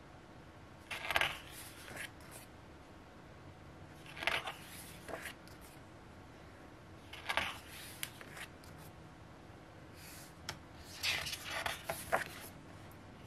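Pages of a glossy album photo book turned by hand, a short papery swish every few seconds, several times over.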